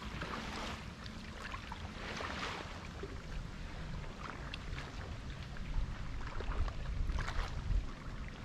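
Small waves lapping and splashing softly against a rocky shoreline, a few gentle splashes a few seconds apart, over a low rumble of wind on the microphone.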